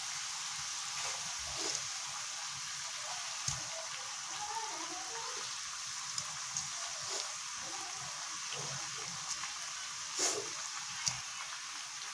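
Spiced fish gravy simmering in a metal pan with a steady sizzling hiss and bubbling, broken by a few brief clicks and soft plops as pieces of lote (Bombay duck) fish are laid into it.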